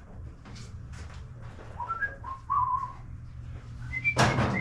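A person whistling a few short notes over a steady low hum, with a loud clatter near the end.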